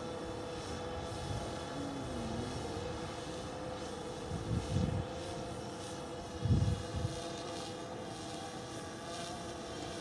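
Quadcopter drone motors and propellers whining steadily while in flight, with two brief low rumbles a little after the middle.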